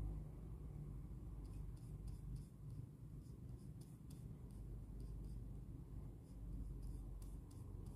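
Wet paintbrush being worked over watercolour paper, laying down a paint swatch: faint, soft scratchy strokes in irregular runs, over a low steady background rumble.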